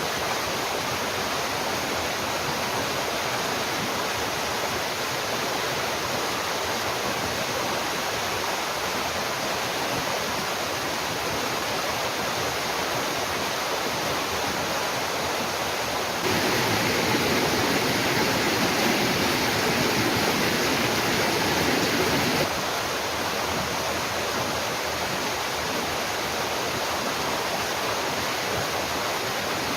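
Steady rushing noise of running water. It is louder for about six seconds past the middle, starting and stopping abruptly.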